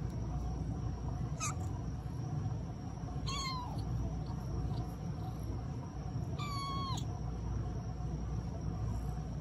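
A kitten meowing three times in short, high-pitched calls, the last one the longest at about half a second, over a steady low background rumble.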